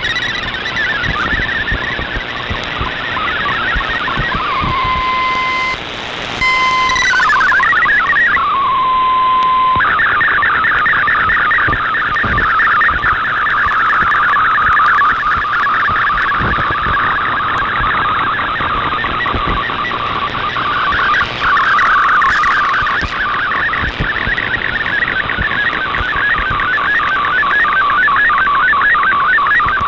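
Shortwave digital-mode broadcast audio from a receiver: fast-stepping MFSK data tones over static hiss. It begins with a few held single tones and short tone runs, then from about ten seconds in becomes a dense, continuous warble as an MFSK picture is being sent.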